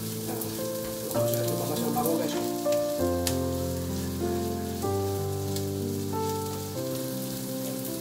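Chopped onion, ginger and garlic sizzling in a frying pan while a spatula stirs them, with small clicks and scrapes against the pan. Background music with sustained, slowly changing chords plays over it.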